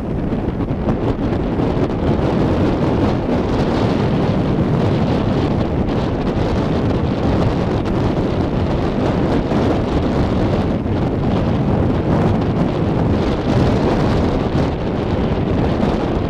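Strong wind blowing across the microphone: a loud, steady, low rushing noise that carries on unbroken.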